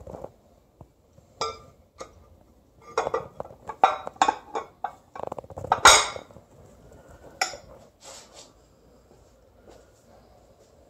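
Aluminium adapter plate being worked onto the dowel pins at the back of a Honda V6 block: a string of metal clinks and knocks, the loudest about six seconds in.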